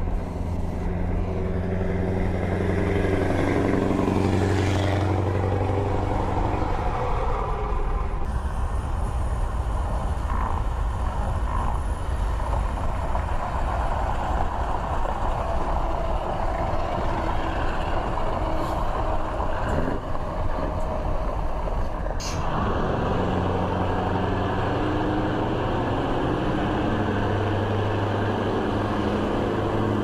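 Scania 164 V8 truck with open straight-pipe exhaust running at road speed: a deep, steady V8 exhaust drone. Through the middle stretch, as the truck is passed close alongside, rushing wind and tyre noise take over.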